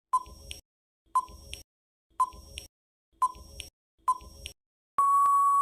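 Quiz countdown timer sound effect: five short beeps about a second apart, then one longer steady beep about five seconds in, signalling that time is up.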